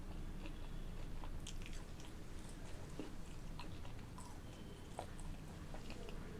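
Close-miked chewing of pizza or garlic bread, with scattered small crackles and wet mouth clicks over a steady low hum.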